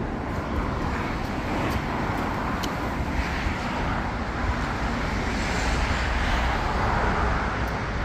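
Steady road traffic noise: the hiss and rumble of passing cars, swelling and easing a little in the middle.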